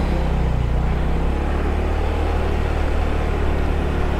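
Motorbike engine running steadily at a low, even pitch while it is ridden along a road, with steady road and air noise over it.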